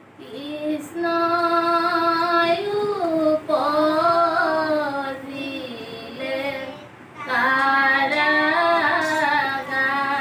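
Women and young girls singing an Assamese diha naam devotional chant in one melodic line, with long held notes that glide up and down. Two phrases, with a short break about six to seven seconds in.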